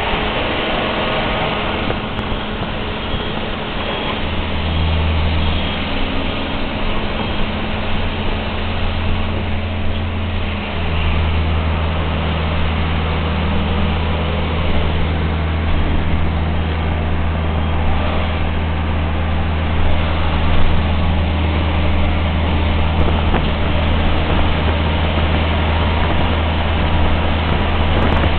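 Cabin noise of an articulated electric trolleybus under way: a steady low hum over road and body noise. About ten seconds in the hum shifts lower in pitch and grows stronger.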